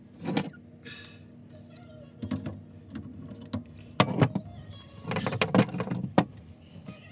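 Irregular knocks, clatters and rattles of things being handled and moved about during plumbing work, loudest about four seconds in and again between five and six seconds.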